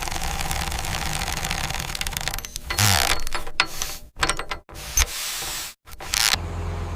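Mechanical work noise in several short clips cut together, breaking off abruptly more than once, with a louder burst about three seconds in.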